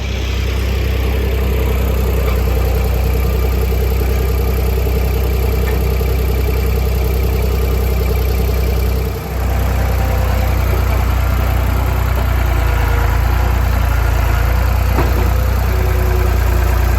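Electric log-arch winch running steadily, pulling a big white oak saw log. It starts abruptly and pauses very briefly about nine seconds in before running on.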